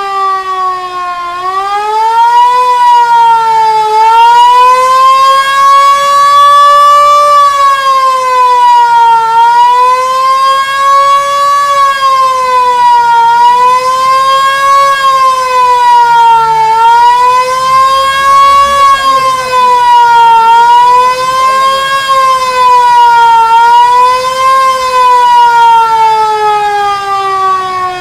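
Police vehicle siren wailing, its pitch rising and falling in slow sweeps a few seconds apart, then falling in one long sweep near the end.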